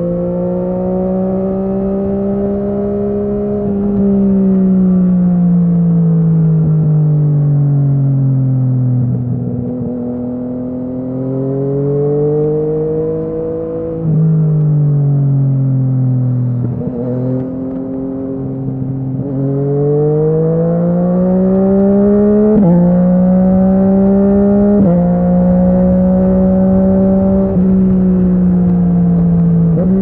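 Yamaha MT-09's three-cylinder engine running through an Akrapovic exhaust while riding. The exhaust note rises and falls with the throttle, sinking low about a third of the way in and again near the middle, then climbing, with a few abrupt jumps in pitch in the second half.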